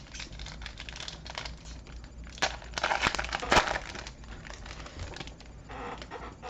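Foil wrapper of a Magic: The Gathering Ravnica Allegiance booster pack crinkling as it is torn open, with a run of louder crackles about three seconds in.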